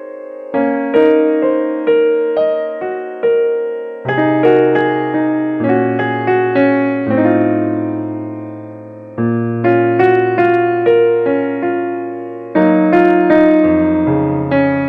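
Background piano music: a melody of struck, fading notes, with lower bass notes joining about four seconds in.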